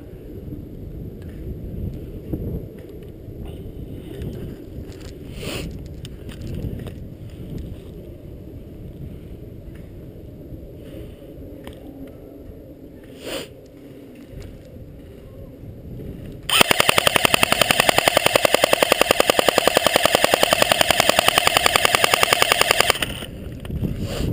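Airsoft rifle firing a long full-auto burst of about six seconds, a rapid unbroken rattle of shots that starts suddenly past the middle and cuts off abruptly. Before it there is only wind rumble and a few scattered clicks.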